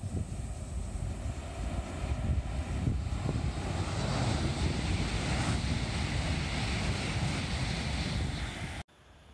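Taiwan High Speed Rail 700T high-speed electric train passing at speed on the viaduct, a rushing noise that builds from about three seconds in, over low wind rumble on the microphone. The sound cuts off suddenly near the end.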